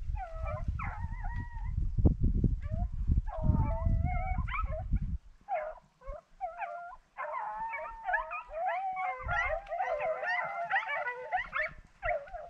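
A pack of rabbit-hunting dogs baying and howling as they run a rabbit, a few calls at a time at first, then several dogs giving voice together from about seven seconds in. A low rumble on the microphone runs under the first five seconds.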